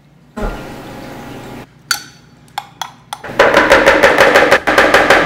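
A kitchen utensil beating butter and sugar in a plastic mixing bowl: fast, loud rhythmic clacking against the bowl, about seven strikes a second, starting about three seconds in after a few scattered clicks.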